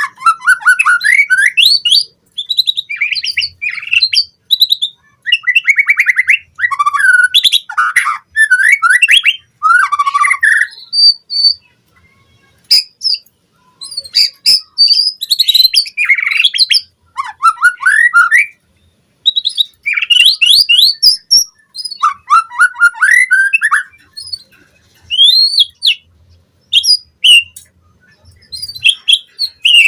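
White-rumped shama (murai batu) singing loudly: fast, varied runs of whistles, trills and chatter, sung in bursts with short pauses.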